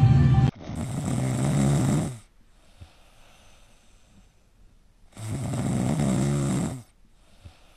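Music stops abruptly just after the start; then a sleeping dog snores twice, two long snores of about a second and a half each, some three seconds apart.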